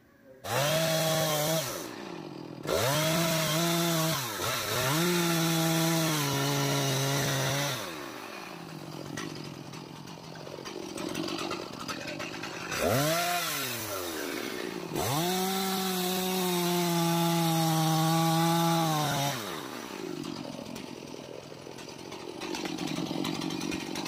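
Two-stroke chainsaw revving up and dropping back to idle about five times, the longest run lasting about four seconds near the middle, then idling.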